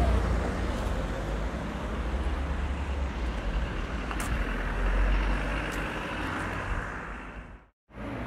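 Bus engine running with road noise, a steady low rumble that fades out near the end into a moment of silence before another recording begins.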